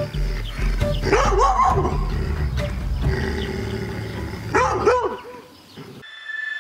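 A Malinois-cross dog barking in two short bursts of a few barks each, about a second in and again near five seconds in, over background music.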